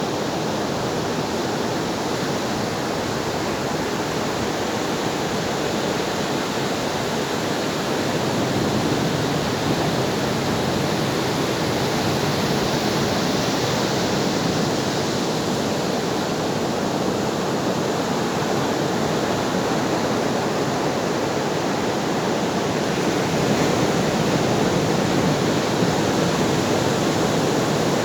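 Ocean waves washing on a shore as a continuous rushing surf, growing a little louder about a third of the way in and again near the end.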